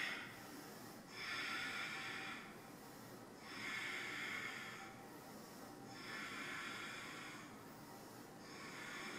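A woman breathing slowly and audibly, four faint breaths about two and a half seconds apart.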